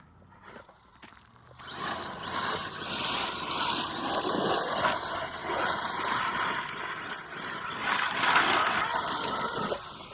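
ARRMA Mojave EXB RC truck being driven hard: its electric motor whines up and down with the throttle over a rough rush of tyre and ground noise. It starts about two seconds in and cuts off just before the end.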